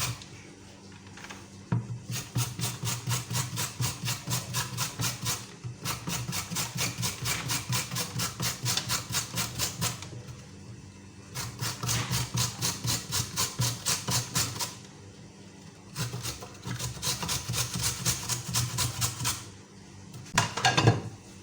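Carrots being cut for a salad in quick, even strokes, about five a second, in four runs broken by short pauses.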